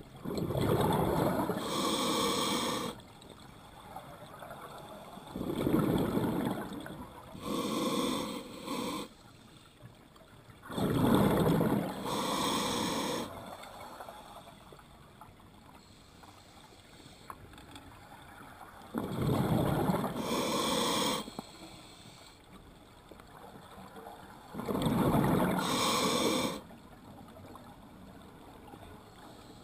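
Scuba diver breathing through a regulator underwater, five breaths. Each breath comes in two parts: the rush of exhaled bubbles and the hiss of the regulator's inhale. There is a longer pause between the third and fourth breaths.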